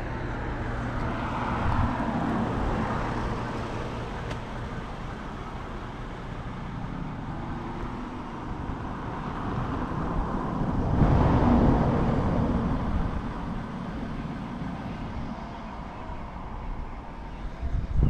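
Outdoor road ambience: a steady rumble of traffic. It swells twice, most strongly about eleven seconds in, as a vehicle passes.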